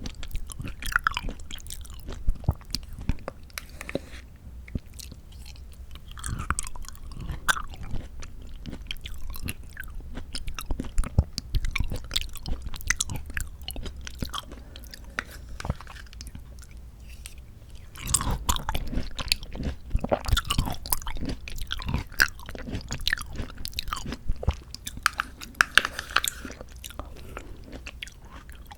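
Close-miked chewing of mandarin orange segments from a fruit cup, with many small, irregular mouth clicks. The chewing gets denser and louder about two-thirds of the way through.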